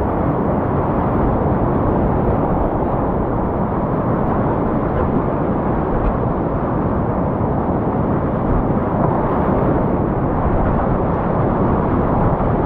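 Loud, steady roar of whitewater rapids rushing and churning around the kayak, heard close up.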